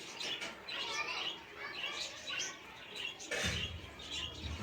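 Green parrot chirping, a quick run of short high calls, with a low rumble coming in about three and a half seconds in.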